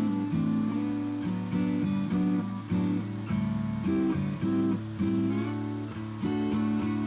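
Outro music: strummed acoustic guitar playing a steady, changing chord pattern.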